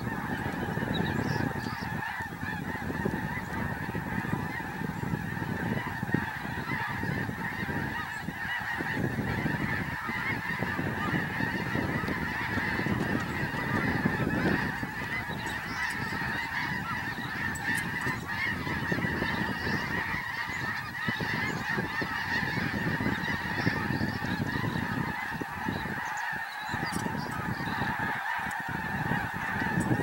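A large flock of snow geese in flight, many birds honking at once in a dense, unbroken chorus.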